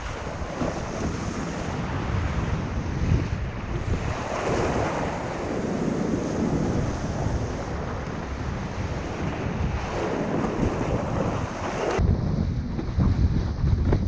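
Wind buffeting an action-camera microphone, mixed with the rushing hiss of breaking surf and whitewater around a kiteboard. The water hiss swells twice, about four and ten seconds in, and the higher hiss cuts off suddenly about twelve seconds in, leaving mostly the low wind rumble.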